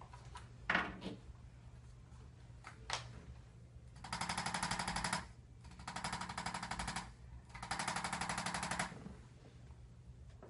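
Electric percussive chiropractic adjusting instrument firing three bursts of rapid taps, each a little over a second long, with a low hum under them. A short thump comes about a second in.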